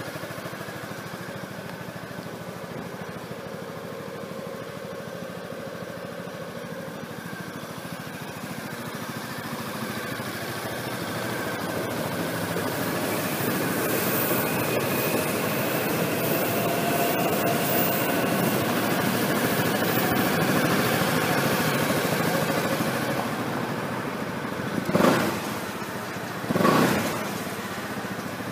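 2011 Honda Forza Z scooter's 250 cc single-cylinder engine idling through an aftermarket muffler. It grows louder from about a third of the way in, heard close to the muffler, and near the end there are two short throttle blips.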